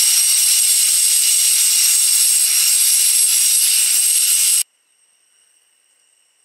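Loud steady hiss that cuts off suddenly about four and a half seconds in.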